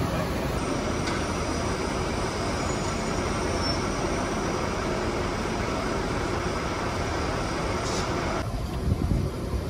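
Steady rushing hum of large ventilation fans in a dairy freestall barn, with a few dull bumps near the end.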